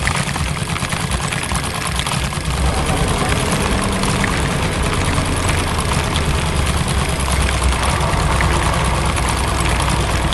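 Heavy excavator engine rumbling under a dense, rapid clatter as its drill attachment breaks up hard asphalt; the clatter thickens about two and a half seconds in.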